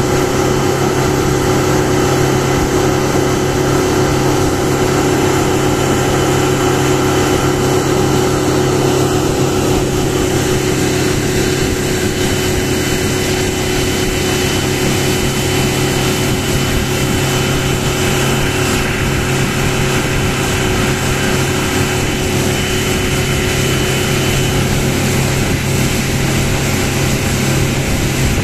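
Outboard motor of a small boat running steadily at speed, with the rush of water along the hull.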